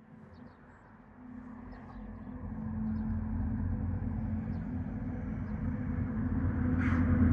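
An engine hum with a steady low pitch, growing louder throughout, with a short hiss near the end.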